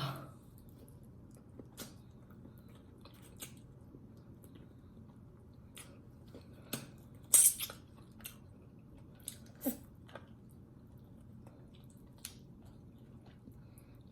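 Close-miked eating: soft chewing, lip smacks and wet clicks while gnawing oxtail meat off the bone, with one louder, hissing suck or smack about halfway through and a smaller one near the end.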